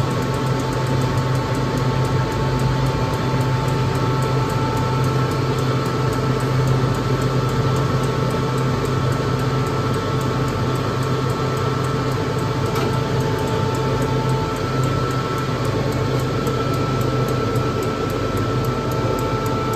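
Common-rail diesel injector test bench running a Delphi injector through its final test: a steady pump-and-motor hum with a few steady higher tones and faint, even ticking of the injector firing.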